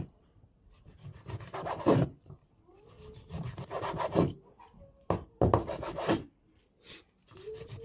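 Large kitchen knife slicing through cooked skirt steak, the blade sawing back and forth and scraping on a wooden chopping board. The strokes come in a series of short bouts with brief pauses between them.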